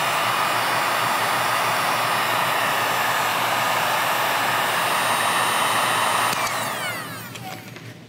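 Electric heat gun blowing steadily with a fan whine, shrinking adhesive-lined heat-shrink tubing over a crimped battery cable lug. About six seconds in it is switched off and the whine falls away as the fan spins down.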